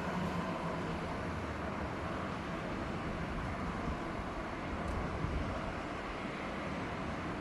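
Steady outdoor background noise with an uneven low rumble underneath.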